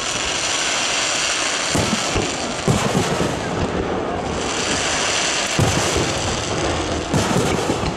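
Aerial fireworks shells bursting: clusters of sharp bangs about two, three, six and seven seconds in, over a steady hiss.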